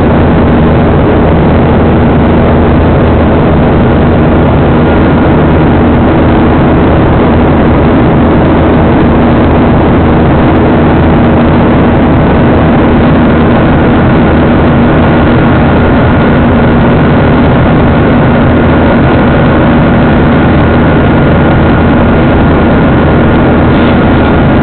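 Airliner cabin noise from a GOL Boeing 737 in flight: a steady drone of jet engines and rushing air, with faint whining tones held throughout.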